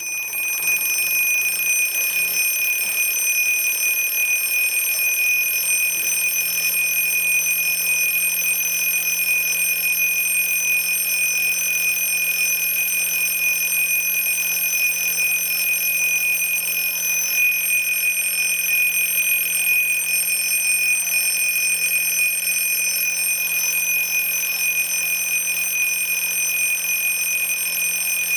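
Rhythm (麗聲) alarm clock sounding its loud alarm: a steady high-pitched tone held without a break.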